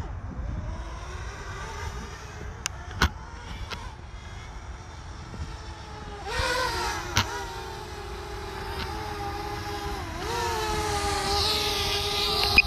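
DJI drone's propellers humming as it hovers and manoeuvres close by. The steady whine comes in about six seconds in, wavers a little in pitch and grows louder toward the end. Before it there is a low background rumble and a few sharp clicks.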